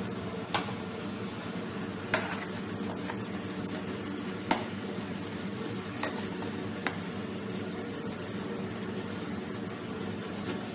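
A ladle stirring simmering prawn curry in a stainless steel kadai, with a few sharp clicks of the ladle against the pan over a steady low hum.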